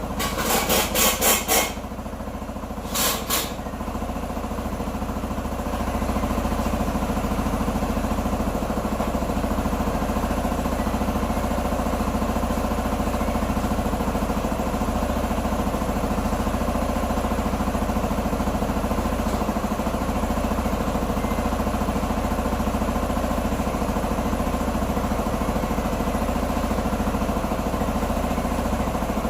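Q2 125 scooter engine being started: a rapid pulsing burst for about a second and a half and another brief one around three seconds in, then the engine runs steadily at idle, a little louder from about six seconds on.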